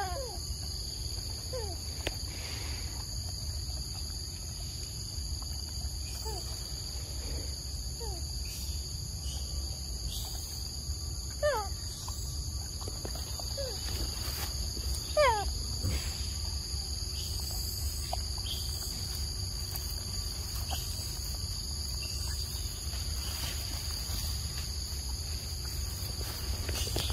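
Steady high-pitched chorus of insects over a low rumble, with a handful of short squeaks that fall in pitch, the loudest about 11 and 15 seconds in.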